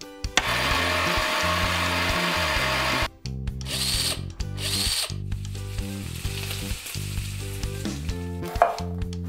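A countertop blender motor runs for about three seconds and stops. Then an 18 V cordless drill gives two short whirs, over background music.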